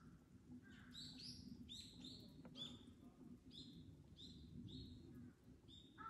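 Faint bird chirping: a run of short, high notes, about two a second.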